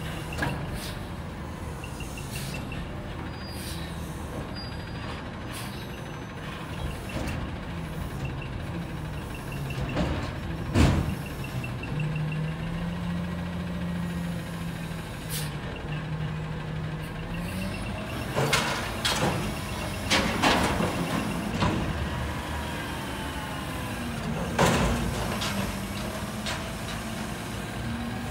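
Natural-gas Autocar ACX front-loader garbage truck with a Heil Freedom body running, its engine pitch stepping up as the hydraulic forks lift a dumpster toward the cab. Several loud metal clanks and bangs, the loudest about ten seconds in and more near the end.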